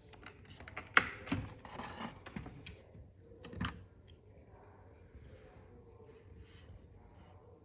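A few sharp clicks and knocks, the loudest about a second in and another near four seconds, with faint rustling between them; then only low background noise.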